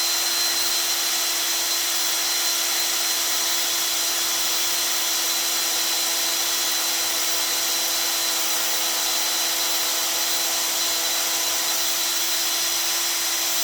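Electric drill running steadily at one constant pitch with a small bit, drilling a pilot hole through a hinge bracket into a wood door panel.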